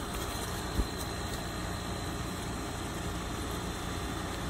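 Steady low rumbling outdoor background noise, with one short thump about a second in.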